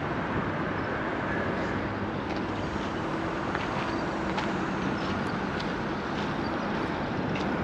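Steady noise of road traffic, with a few faint clicks scattered through it.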